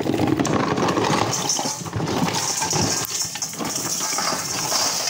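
Roasted multani mitti (Fuller's earth clay) chunks being poured into a steel bowl: a dense, continuous rattling clatter of many small hard pieces.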